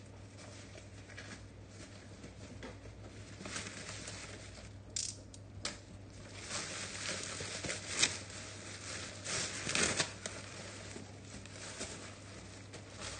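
Black plastic bag rustling and crinkling as it is pulled off a cardboard box, in uneven bursts with a few sharp crackles, busiest in the middle. A steady low hum runs underneath.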